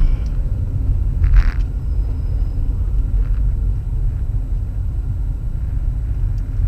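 Steady low rumble of a car moving slowly, heard from inside the cabin through a dashcam's built-in microphone, with a brief hiss about a second and a half in.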